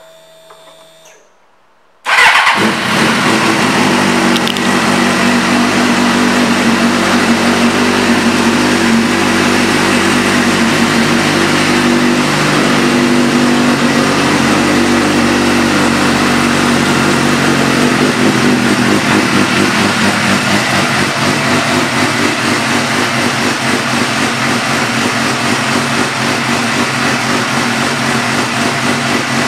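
2004 Suzuki GSX-R600's inline four-cylinder engine, fitted with a Yoshimura exhaust, catches abruptly about two seconds in and then runs at a steady idle.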